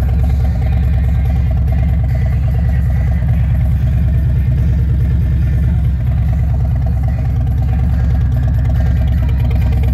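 Harley-Davidson touring motorcycle's Milwaukee-Eight V-twin engine idling steadily.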